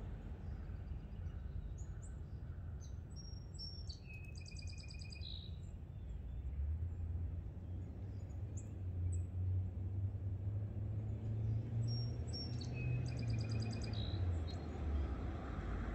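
A songbird sings two short trilled phrases, about four seconds in and again near the end, over a steady low rumble that grows louder from about halfway through.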